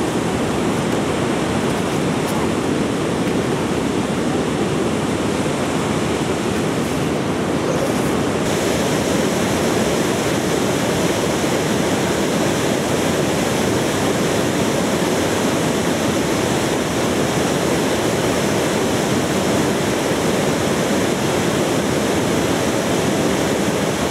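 Water pouring over a river weir and churning in the weir pool: a loud, steady rush.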